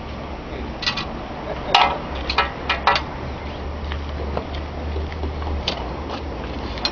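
A few sharp clinks and knocks, bunched in the first half and one more near the end, over a steady low hum.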